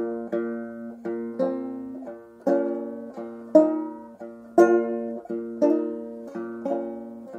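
Resonator banjo playing a slow, medieval-style melody: single plucked notes, about one or two a second with a few stronger accents, over a steady low note that keeps ringing underneath.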